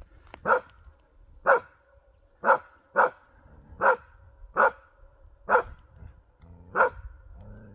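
Karelian bear dog barking at a moose training target: eight short, sharp barks, roughly one a second, the bay-barking of a moose dog.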